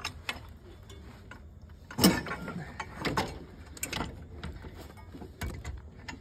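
Metal clanks and clicks of hand tools and parts being worked loose in a car's engine bay, the loudest clank about two seconds in.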